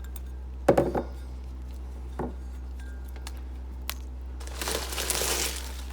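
Kitchen clatter: a loud sharp knock just under a second in and a few lighter clinks of cookware, then a rustling pour near the end as dry oyster crackers are tipped into the pan of stuffing.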